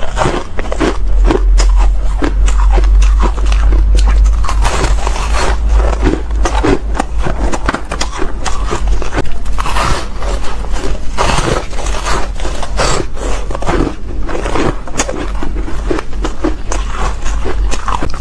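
Close-miked crunching and chewing of soft, frosty white ice chunks: a continuous run of irregular crisp crunches as bite after bite is chewed, over a low steady hum.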